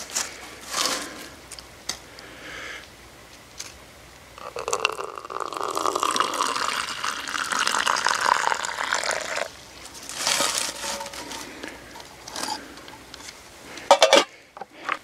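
Water poured in a steady stream into a camp cup for about five seconds, with short handling noises before and after. Near the end a metal lid clinks a few times as it is set onto a steel canteen cup.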